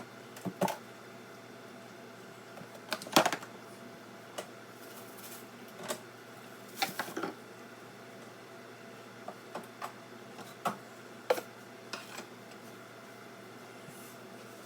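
Irregular knocks and clicks of food containers, jars and bottles being taken out of a refrigerator and set down, over a faint steady hum.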